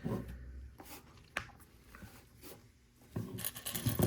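Hands handling plastic LEGO pieces: a sharp click about a second and a half in, then a run of small clicks and rubbing near the end.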